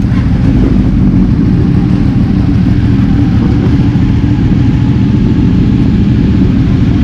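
Several sport motorcycle engines running at idle and low speed as the group pulls away slowly, a loud, steady low drone.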